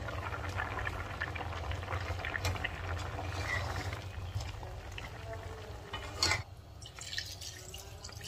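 Curry simmering in an aluminium wok, with the wet sounds of a spoon stirring and liquid being poured in, over a low steady hum. A brief louder noise comes about six seconds in, and the liquid sounds are quieter after it.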